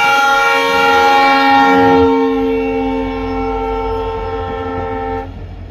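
WDP4D diesel locomotive's air horn held in one long, loud multi-tone blast as the locomotive runs into the platform and passes close by, cutting off about five seconds in. A low diesel engine rumble runs underneath from about two seconds in.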